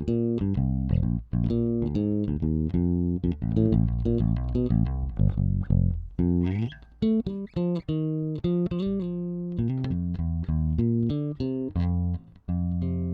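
Alien Audio Constellation electric bass played direct with no effects, a phrase of plucked notes. Its treble and tone knobs are both boosted, which gives the notes a bright, clear top end.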